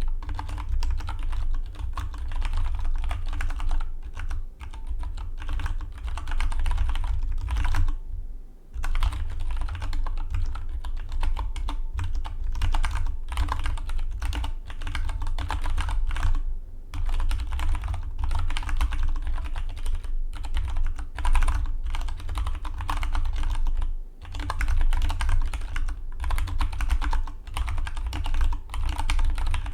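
Rapid, continuous typing on a Dygma Defy split mechanical keyboard, a dense run of key clicks with two brief pauses, about a third of the way in and again near the end.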